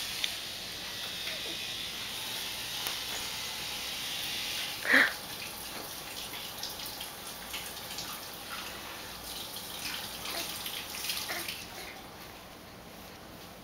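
Steady hiss and faint rustling as a baby shifts on bedding among soft fabric toy blocks, with one short, high squeak about five seconds in.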